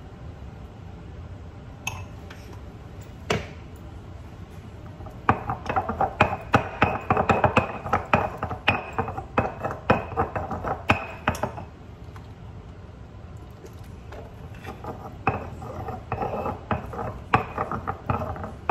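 Stone pestle knocking and grinding against a volcanic-stone molcajete as salsa is ground, in rapid, uneven strokes. A few single clicks come first; a dense spell starts about five seconds in and another near the end.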